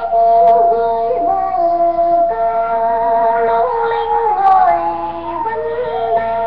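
Radio-drama background music heard through a Philco 39 tube radio: slow, held melody notes that waver and slide from one pitch to the next, with a dull, narrow AM-broadcast sound that has no highs.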